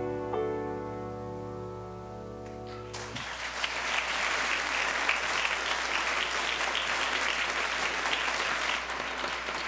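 Grand piano's final chord ringing out and slowly dying away, then about three seconds in the audience breaks into steady applause.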